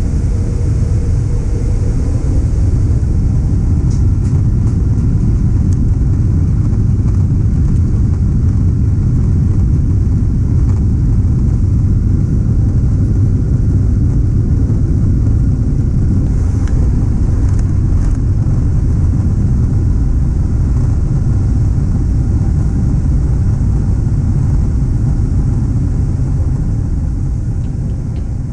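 Cabin noise of a Boeing 777-300ER on its takeoff roll and climb-out: a loud, steady low rumble from the GE90 engines at takeoff thrust and the wheels on the runway, heard from inside the economy cabin.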